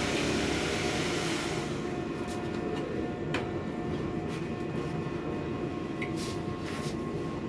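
Air conditioner running with a steady hum. A hiss dies away about a second and a half in, and a few light clicks follow.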